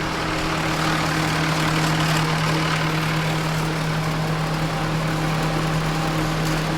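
Tractor engine idling at a steady speed, an even low hum throughout.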